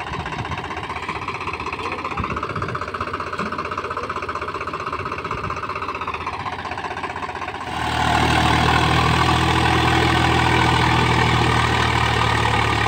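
Swaraj 735 XT tractor's diesel engine running under load, trying to haul a loaded sand trolley with its rear wheel bogged in sand. The engine speed rises about two seconds in and drops back around six and a half seconds, then the sound turns abruptly louder and heavier about eight seconds in.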